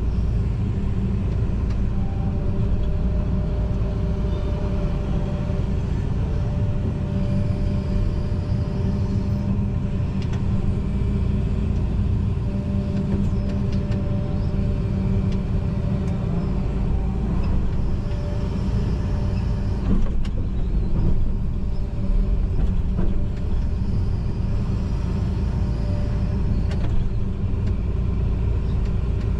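John Deere 245G excavator running steadily while it works, heard from inside its cab, with a whine that comes and goes and a few light knocks.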